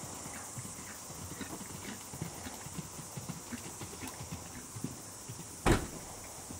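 Horse's hooves cantering on soft arena footing, a quiet uneven run of hoofbeats. One loud thump comes near the end.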